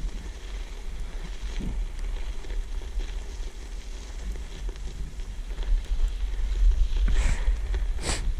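Bicycle being ridden through snow, with wind rumbling steadily on the microphone over a haze of riding noise. A sharp knock comes near the end.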